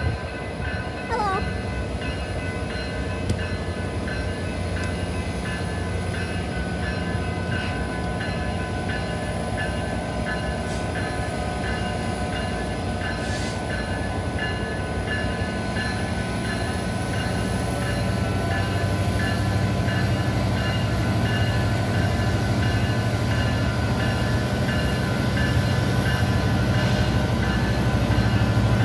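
Diesel freight locomotive approaching at low speed, its engine rumble growing louder toward the end.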